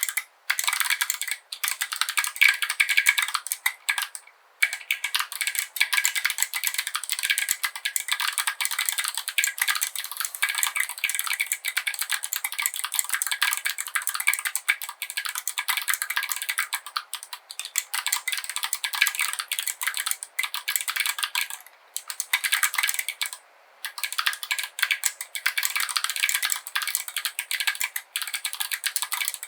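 Fast, continuous typing on a mechanical keyboard with clicky Kailh BOX Jade switches and tall SA-profile ABS keycaps in an aluminium case: a dense stream of sharp, bright key clicks, broken by a few short pauses.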